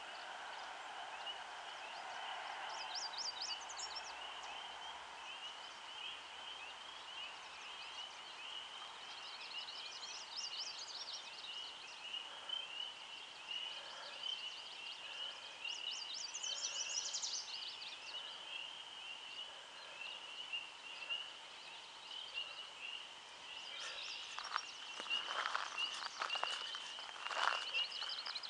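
A dense chorus of frogs calling without a break, many fast high peeps overlapping, with a higher trill cutting in a few times. Near the end a beaver splashes in the water several times.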